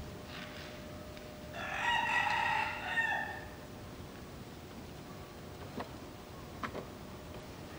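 Japanese macaque giving one loud, drawn-out high-pitched call of nearly two seconds, after a fainter short call just before it. A few faint ticks follow near the end.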